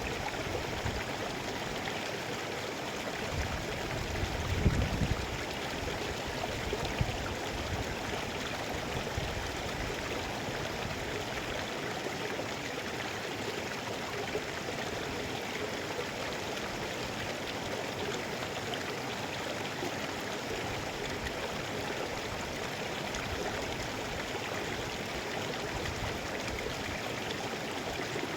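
Mountain river rushing steadily over rocks, an even sound of running water. A brief low rumble rises over it about four to five seconds in.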